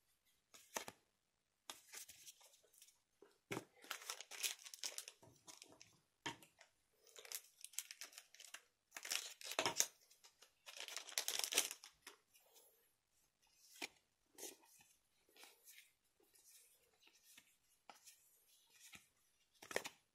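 A trading-card booster pack's wrapper being torn open and crinkled, with cards handled and flipped; irregular rustling bursts, loudest through the middle stretch.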